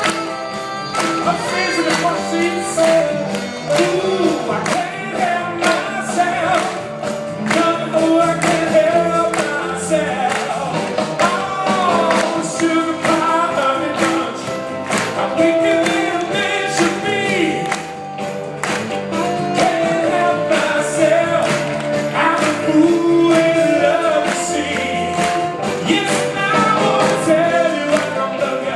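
Live band music: a man singing into a microphone over drums, electric guitar and keyboards, recorded from the audience.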